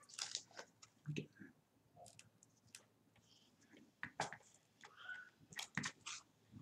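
Faint scattered clicks and rustles of a clear plastic card holder and trading cards being handled, with a few sharper clicks about four seconds in and near the end.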